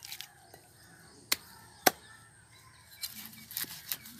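Two sharp chops, about half a second apart, of a large curved knife cutting through a fish into a wooden log chopping block, then a run of lighter knocks and scrapes of the blade on the block.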